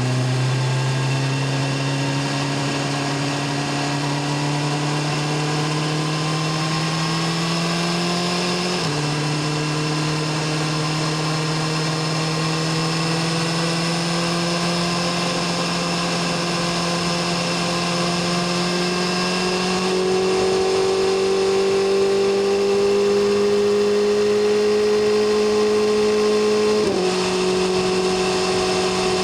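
BMW S1000RR's inline-four engine pulling steadily at part throttle, its note slowly rising in pitch. It shifts up twice, about nine seconds in and near the end, and each shift drops the pitch suddenly.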